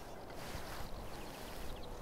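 A feeder rod being cast out: a brief swish about half a second in. Behind it are a low rumble of wind on the microphone and faint bird chirps.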